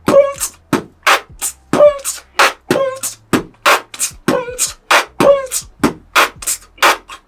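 Beatboxing: a steady rhythm of mouth-made percussion hits, about three a second, with short hummed tones (the beatbox 'hum noise') sounding on several of the beats.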